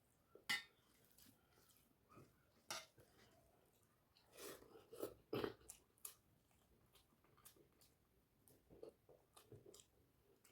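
A person chewing a meal of rice and fish curry, with wet mouth smacks and clicks; the loudest bites come about half a second in and in a cluster around five seconds in.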